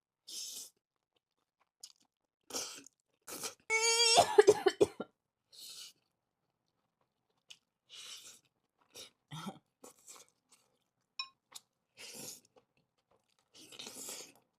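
A person eating, with short chewing and mouth noises scattered through, breaks into a burst of coughing about four seconds in, the loudest sound.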